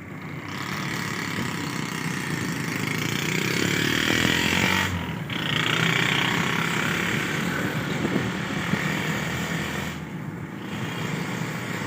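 Vehicle engine and road traffic noise while moving along a city street, a steady hum with rushing noise that swells and dips briefly about five seconds in.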